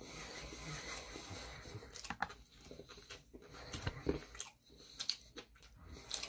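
Close-up chewing and mouth sounds of a person eating sushi, wet and irregular, with scattered soft clicks.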